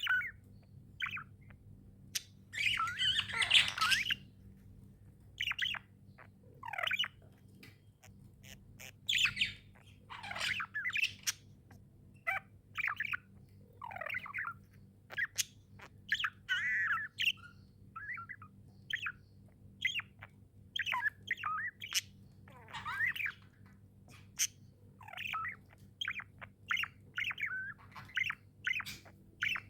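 Budgerigars chirping in quick, short, warbling calls, with a louder harsh squawk about three seconds in.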